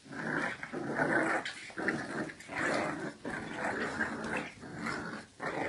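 Two English bulldog puppies growling at each other as they play-fight: a run of rough growls with short breaks between them.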